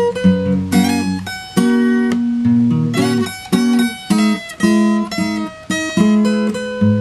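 Two acoustic guitars playing an instrumental duet: one part fretting chords, the other picking a melody higher up the neck, in a quick run of plucked notes.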